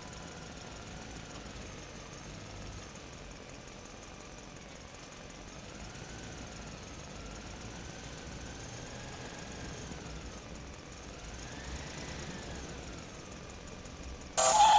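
Small electric motors of radio-controlled toy construction vehicles whining faintly, their pitch slowly rising and falling as they speed up and slow down. A sudden loud, pitched tone cuts in at the very end.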